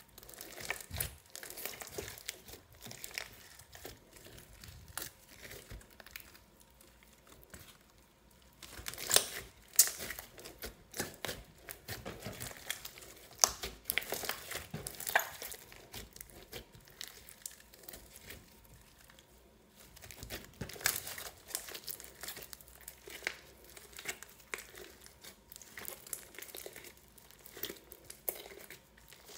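Clear slime with mixed-in soft clay and foam beads being squeezed and kneaded by hand, giving a run of irregular crackles and sticky pops. The pops come thickest about a third of the way in and again about two-thirds in.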